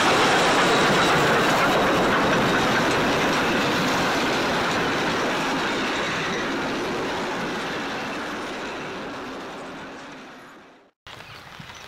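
Steam locomotive Rx224 and its train of carriages running past on the track, loud at first and fading steadily as the train draws away. The sound cuts off abruptly about eleven seconds in.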